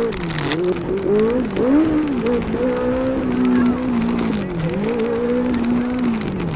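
Benelli 600i inline-four motorcycle engine revving while the bike is ridden in the low gears. Its pitch peaks at the start and falls, then rises and falls several times, holding steady for a second or so at a time.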